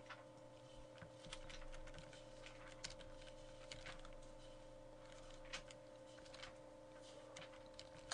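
Faint computer keyboard keystrokes at irregular intervals, over a steady low hum.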